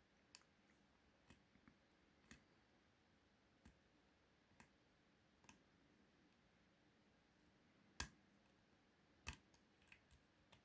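Faint, irregular clicks of a steel lock pick working the pins of a 5-pin euro cylinder held under tension, with two louder clicks about eight and nine seconds in.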